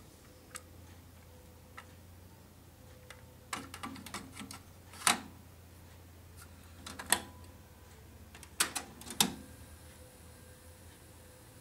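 Plastic clicks and clacks of a Philips FC920 cassette deck being loaded: a rattle of small clicks as the cassette goes into the door holder, then single sharp snaps about five and seven seconds in and a quick pair near nine seconds as the cassette door is pushed shut. A low steady hum sits underneath.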